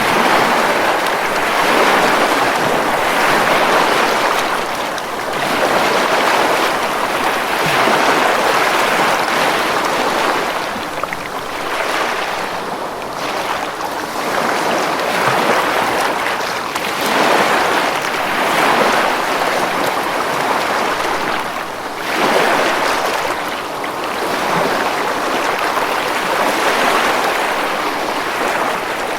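Ocean waves breaking on a beach: a continuous surf wash that swells and ebbs every few seconds.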